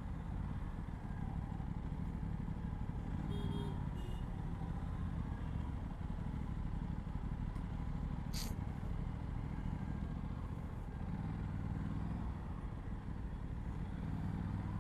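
Aprilia RS 457's parallel-twin engine running through its stock exhaust while riding in city traffic, its note swelling and easing a few times with the throttle. A single sharp click comes about eight seconds in.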